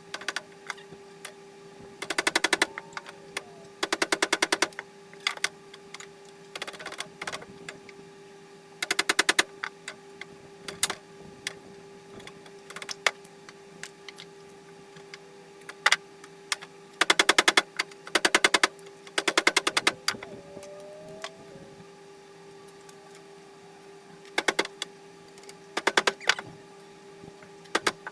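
Air-over-hydraulic press pump chattering in short bursts of rapid clicks, about a second each, several times over as the foot pedal is worked, with a steady hum and scattered single knocks in between.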